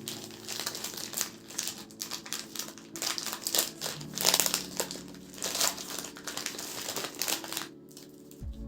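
Packaging crinkled and rustled by hand, an irregular run of crackles that is densest around the middle.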